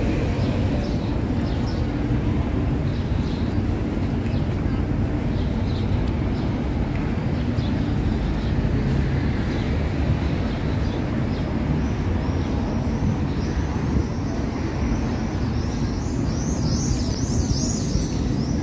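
Steady street traffic noise from cars on the road beside the sidewalk, with birds chirping over it in the last few seconds.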